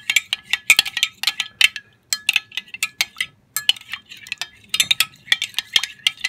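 Metal spoon stirring liquid in a glass Pyrex measuring cup, clinking rapidly and irregularly against the glass wall with a short ring on each tap, with two brief breaks. The liquid is oak gallnut tanning extract being mixed into water.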